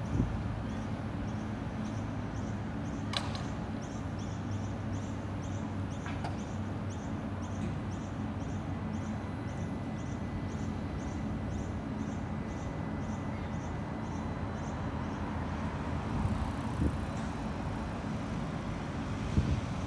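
Battery-powered CAF Urbos 100 light rail tram humming steadily at a stop, then pulling slowly away. A high ticking at about two a second runs beside the hum until near the end, when a few knocks are heard.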